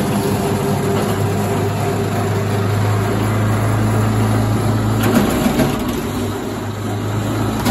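Engine of a wood chipper running at a steady speed as spruce branches are fed in. About five seconds in, the sound changes to a rougher machine noise with light clicks and clatter.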